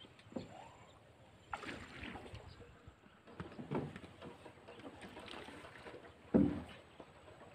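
Bamboo raft ferry on the river: water splashing and lapping against the raft, with scattered knocks from the bamboo deck. The loudest is a single thump a little over six seconds in.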